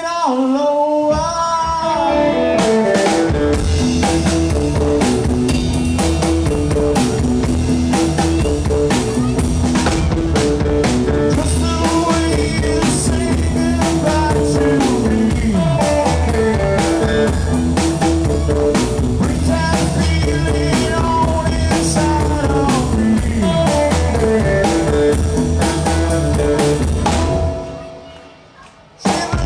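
Live rockabilly trio playing: electric guitar, drum kit and upright bass, with a steady low bass line under the guitar and drum hits. The band drops out briefly near the end, then comes back in.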